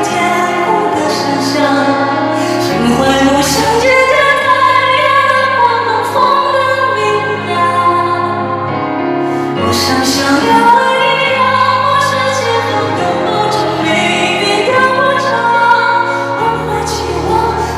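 Live pop song performance: a high male voice singing over the band's accompaniment.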